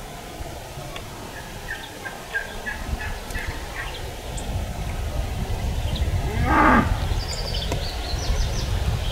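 A Gould's wild turkey gobbler gobbles once, loudly, about six and a half seconds in. Short high chirps come before and after it.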